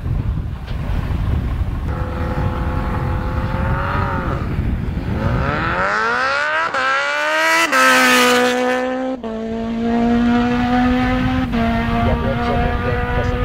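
Drag racing engine revving: its pitch climbs steeply about five seconds in, then holds steady and high for several seconds, stepping down slightly about nine seconds in, over a constant low rumble.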